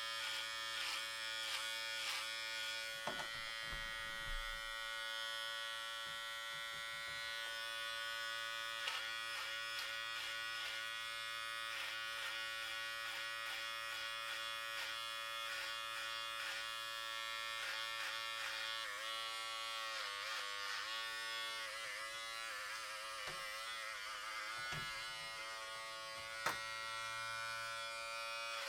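Electric hair clippers running with a steady buzz while cutting hair, the tone wavering as the blades pass through it, with a single sharp click near the end.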